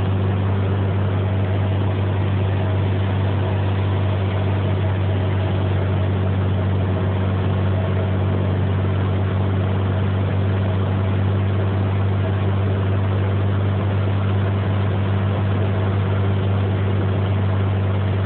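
Cessna 210's six-cylinder piston engine and propeller running steadily on the descent to land, heard from inside the cabin as a constant low drone with no change in power.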